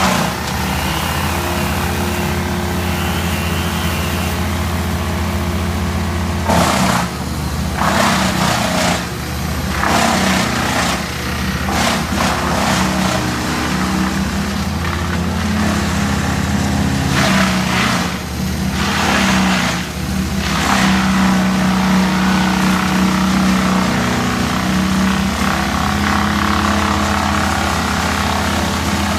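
Wood chipper engine running steadily, with repeated short crunching bursts as branches are fed through it.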